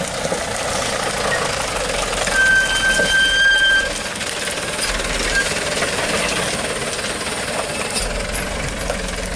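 Truck engine running as the truck moves forward, with a rough, rattling mechanical noise. About two seconds in, a steady high-pitched tone sounds for about a second and a half.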